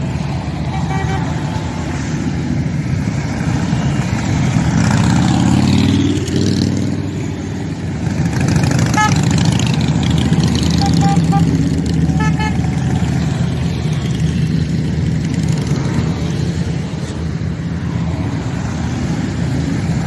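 A pack of cruiser motorcycles circling a roundabout, their engines rumbling steadily as they ride past, one rising and falling in pitch as it goes by about a quarter of the way in. A few short horn toots sound around the middle.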